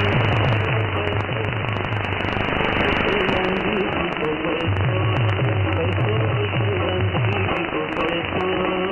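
Weak AM shortwave signal on 17.530 MHz demodulated by an IZT R3240 receiver: steady hiss and static with faint programme audio wavering underneath, the station barely readable through the noise.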